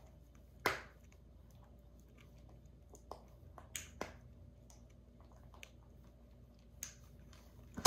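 African grey parrot's beak pecking and prying at the lid of a plastic canister, giving a handful of sharp, irregular clicks and taps. The loudest tap comes about a second in.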